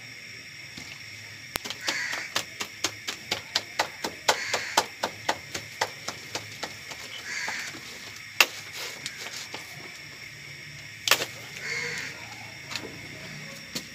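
Hands slapping a ball of roti dough back and forth between the palms to flatten it by hand. A quick run of claps, about three or four a second, pauses midway and picks up again near the end.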